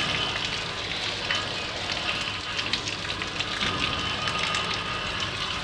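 Streams of rinse water pouring from a tanker's bottom outlet valves and splashing onto wet ground and a man's hands: a steady hissing splash with a low hum underneath. This is the final clean-water flush of the tank compartments, and the water now runs clear.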